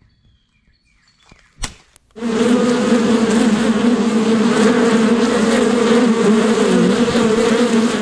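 A sharp crack as a baseball bat strikes a hanging nest, then about two seconds in a loud, dense buzzing of a swarm of disturbed bees sets in abruptly and holds steady, a low drone with a higher hum above it.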